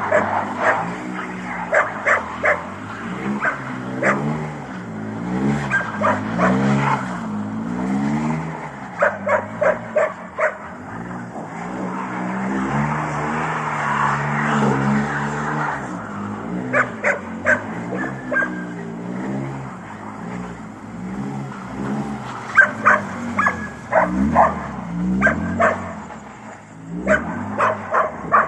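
BMW E46 323i's 2.5-litre inline-six revving up and down over and over as the car slides in circles on snow. A dog barks again and again over the engine.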